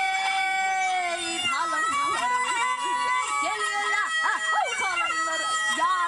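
Turkmen folk music: a woman sings with a plucked dutar while a bowed gyjak spike fiddle plays along. The melody moves in held notes and sliding pitches, with a nasal, reedy tone.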